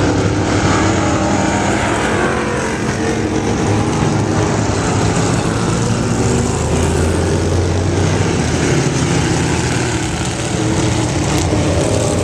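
Several vintage sprint-car and midget racing engines running together on a dirt oval during hot laps, a loud continuous din whose pitches rise and fall as the cars circle.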